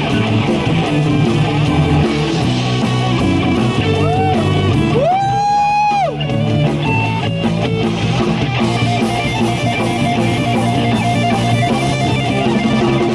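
Live rock band playing an instrumental break, with strummed guitars over bass and drums. About five seconds in, one long high note slides up, holds for about a second, and slides back down.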